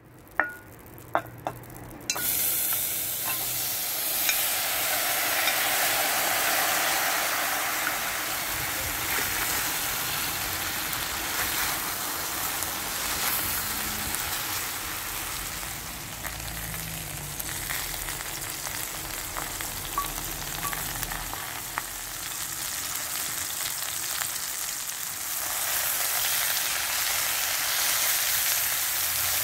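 Beef short ribs sizzling as they fry in very little oil in a hot enamelled cast-iron pot, turned with a wooden spoon. A few knocks in the first couple of seconds, then the sizzling starts loudly at once and swells again near the end.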